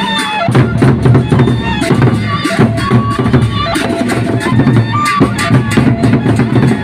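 Sasak gendang beleq ensemble playing: big drums beating a dense, driving rhythm, with frequent sharp cymbal clashes and short pitched ringing notes over the top.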